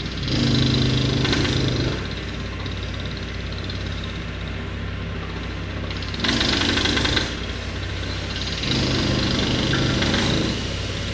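Road-work machinery: an engine runs steadily underneath while three louder bursts of rapid mechanical hammering, such as a breaker hammer, come and go. The bursts fall about a second in, past the middle, and near the end, each lasting one to two seconds.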